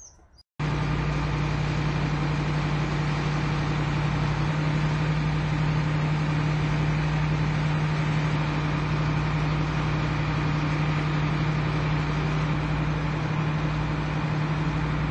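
A vehicle engine running steadily: a constant low hum that starts abruptly about half a second in and holds without change.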